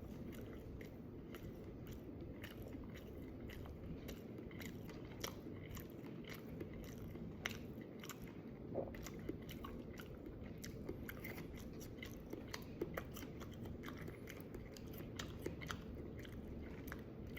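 A person chewing a chicken nugget sandwich with pickles, tomatoes and onions: many small crunches of the breaded nuggets, over a low steady room hum.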